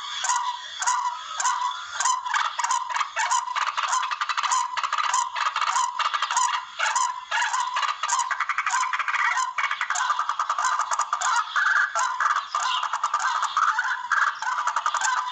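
Barred rails (tikling) calling without a break: a dense chorus of harsh, rapidly repeated notes, a lure call recording used to draw the birds in for hunting.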